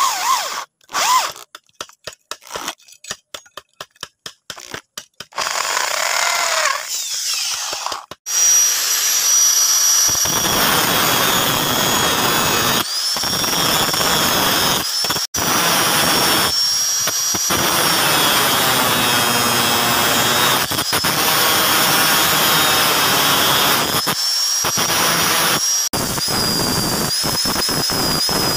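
An electric drill bores through a small steel plate in short trigger bursts, then a longer run. From about eight seconds in, an angle grinder takes over, running with a steady high whine as it cuts steel scrap, with a few brief pauses.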